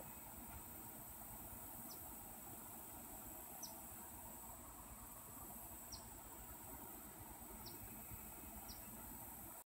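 Faint, steady high-pitched drone of insects in the trees, with five short falling chirps over it. The sound cuts off suddenly near the end.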